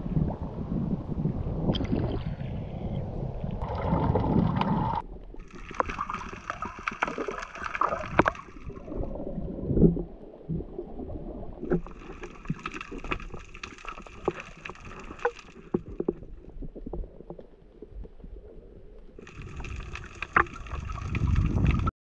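Sea water sloshing at the surface, then the muffled underwater sound heard by a camera on a diving spearfisher: gurgling with spells of crackling clicks. The sound cuts off abruptly near the end.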